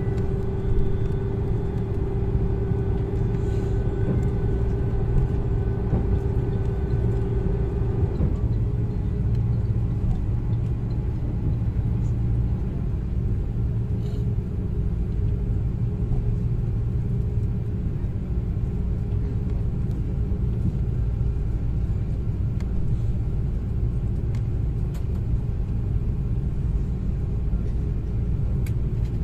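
Jet airliner cabin noise while taxiing after landing: a steady low rumble of the engines and the aircraft rolling, with a steady engine whine that fades about eight seconds in.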